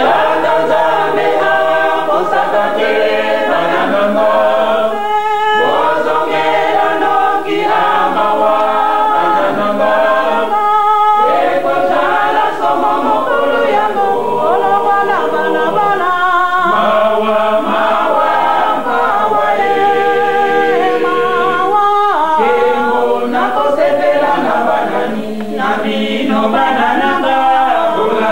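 Choir singing unaccompanied, several voices together, with no instruments. The sound is dull, with nothing above about 4 kHz, as on an old cassette recording.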